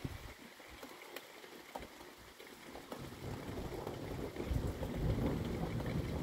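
Steady rain falling in a thunderstorm. A low rumble swells from about three seconds in and is loudest near the end.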